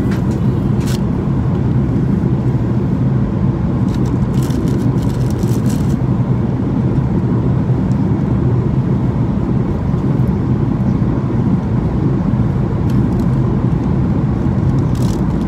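Steady cabin roar inside a Boeing 737-800 on approach: engine and airflow noise, deep and unchanging.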